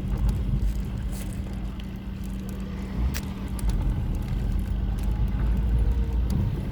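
Turbocharged Toyota 1JZ inline-six in a Mazda RX-8, running steadily at idle with a deep rumble and a constant low hum, with a few light clicks.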